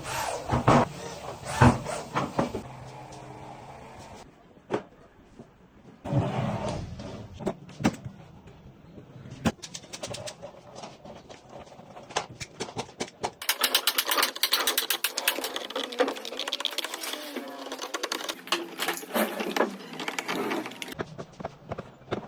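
Woodworking sounds while a wooden chair frame is built: scattered sharp knocks and clicks, then a fast mechanical rattle of rapid repeated strokes from a power tool that lasts several seconds and stops near the end.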